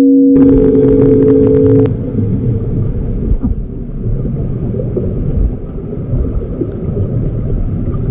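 Held musical tones stop about two seconds in, leaving a dense, muffled low rumble of a camera recording underwater in a pool, with faint crackling over it.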